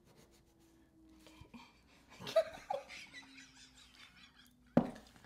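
Soft laughter from two women starting about two seconds in, after a quiet start, with one sharp short sound near the end.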